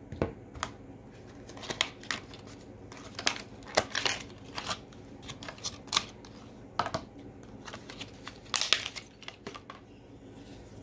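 Irregular clicks, taps and light rustling as small hard plastic lighter cases are handled. About a dozen sharp clicks are scattered unevenly, with a cluster around four seconds in and another near nine seconds.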